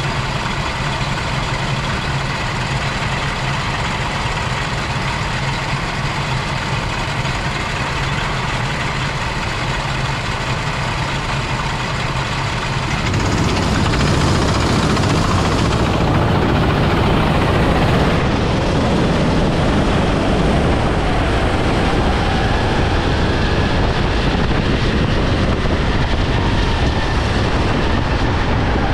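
Go-kart engines idling on the starting grid, then the karts pull away together about halfway through and the engines get louder as the kart accelerates up to speed.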